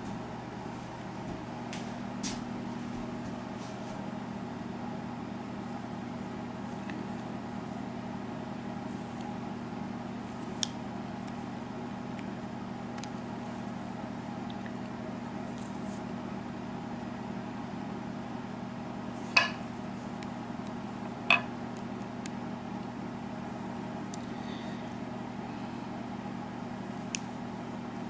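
Steady low hum with occasional sharp metal clicks and taps as a euro cylinder lock is taken apart; the two loudest clicks come about two-thirds of the way through, two seconds apart.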